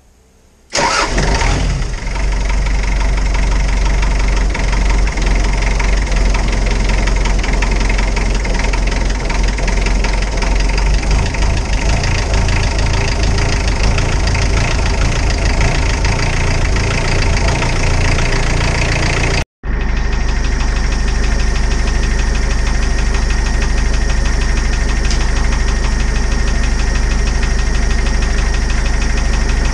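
Isuzu turbodiesel engine starting about a second in, then running steadily. The sound drops out for an instant about two-thirds of the way through and carries straight on.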